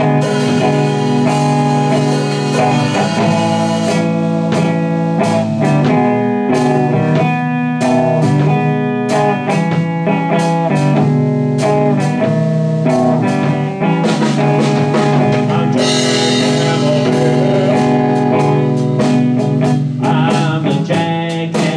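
Slow blues jam played live: guitar over a drum kit during an instrumental stretch between sung lines.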